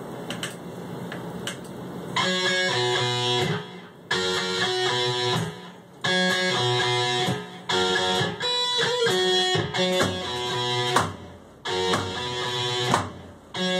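Instrumental rock song with electric guitar and drums. It is quieter at first, comes in loud about two seconds in, and plays in stop-start phrases that break off briefly several times.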